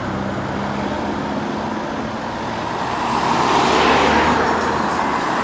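Road traffic noise from engines and tyres on the street, swelling to its loudest a little after halfway through as a car goes by.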